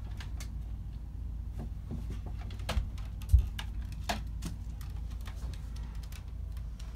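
Quiet movement and handling noise: scattered light clicks and taps over a low steady rumble, with a dull thump about three and a half seconds in.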